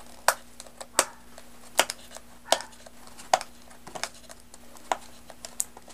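Headphone retail box and its packaging being opened and handled: a series of sharp, irregular clicks and taps, roughly one a second, over a faint steady hum.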